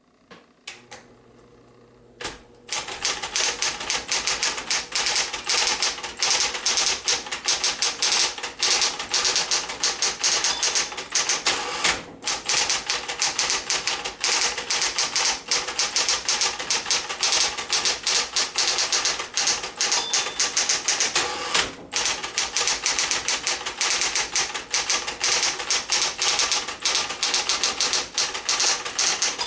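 Smith-Corona Coronet Automatic 12 electric typewriter. Its motor hums faintly for the first couple of seconds, then fast, continuous typing of rapid keystrokes follows. Two short pauses break the typing, each coming a second or two after a short high ping.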